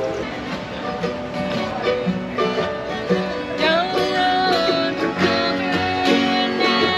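Live acoustic string band, guitars and other plucked strings, playing country-bluegrass style music.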